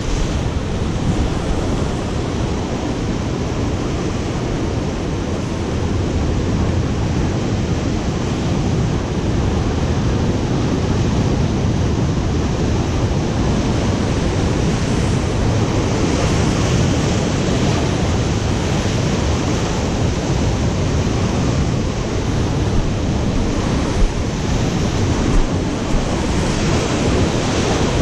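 Ocean surf breaking and washing over rocks, a loud, steady rush of noise, with wind on the microphone.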